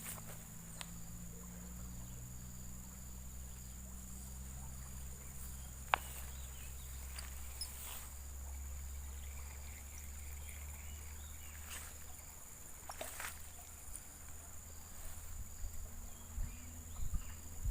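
Steady high-pitched buzzing of insects in riverside vegetation, unbroken throughout, over a low hum, with a sharp click about six seconds in and another near thirteen seconds.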